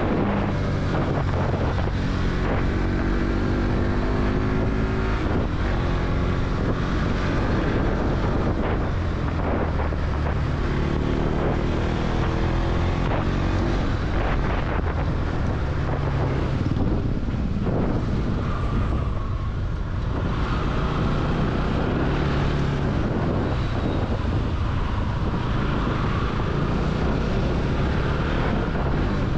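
Motorcycle engine running under way, its pitch rising and falling with the throttle, over heavy wind noise on the microphone.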